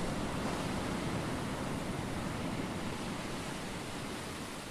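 Ocean surf washing onto a shore: a steady rush of waves, slowly getting quieter.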